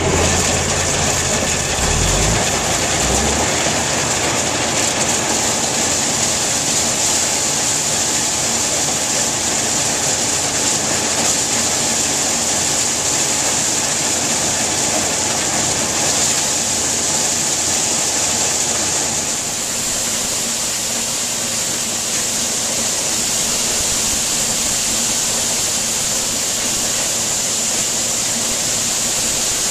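John Deere 43 corn sheller running and shelling ear corn: a loud, steady mechanical clatter and rattle of ears and kernels going through the machine.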